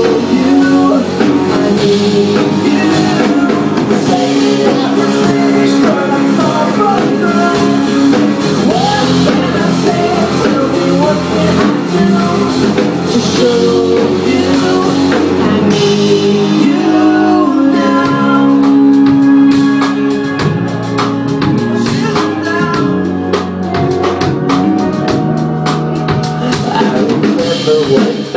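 Pop-rock song with a male lead vocal over guitar and a drum kit.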